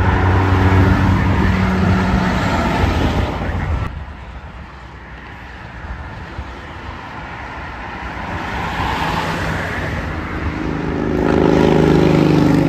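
Highway traffic with tractor-trailers passing: a semi truck's diesel engine and tyres loud at first, breaking off suddenly about four seconds in, then quieter traffic that builds as another semi drives past close by near the end.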